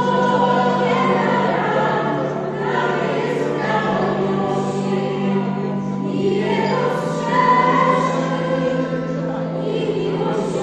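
A small mixed choir of men and women singing together in long held notes.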